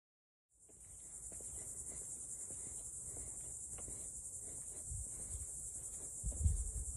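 Insects keeping up a steady, high-pitched chorus, starting about half a second in after a moment of silence, with a few low thumps near the end.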